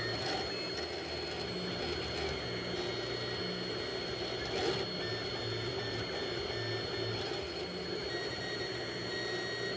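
Monoprice Select Mini V1 3D printer printing in PLA: its stepper motors whine in short low tones that change pitch every second or so as the print head moves, over a steady whirr and a faint high whine.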